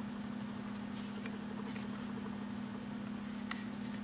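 Steady low background hum, with a few faint light ticks from fingers handling a plastic sunglasses frame.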